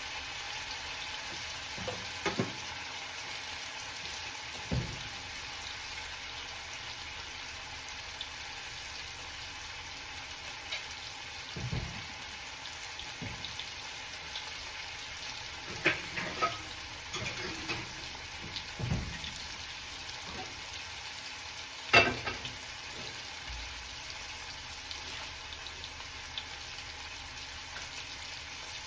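Potatoes frying in hot oil, a steady sizzle, with occasional knocks of a utensil in the pan, the loudest about 22 seconds in.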